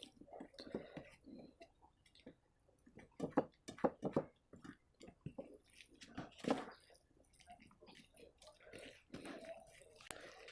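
Faint, irregular wet chewing and mouth smacks of someone eating rice mixed with soybean curry, with scattered small clicks.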